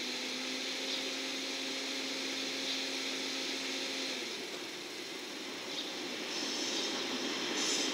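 Container freight train hauled by an EF210 electric locomotive approaching at a distance: a low rumble with hiss that grows louder near the end. A steady low two-note tone sounds through the first four seconds and then cuts off.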